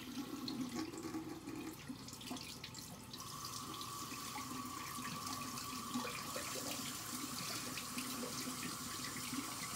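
Bathroom sink tap running steadily, left on to get the water warm. A faint steady whine joins the running water about three seconds in.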